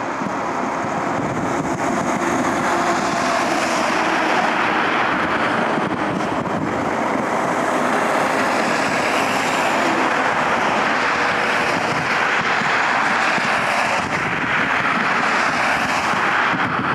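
Jet aircraft engine noise: a loud, steady rushing that swells and eases, with a faint high whine that slowly falls in pitch.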